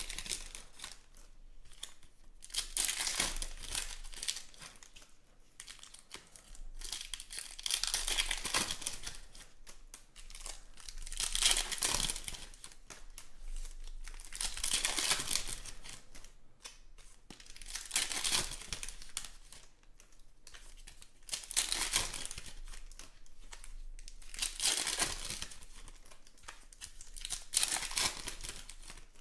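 Foil trading-card pack wrappers being torn open and crinkled by hand, in bursts every few seconds with quieter gaps between.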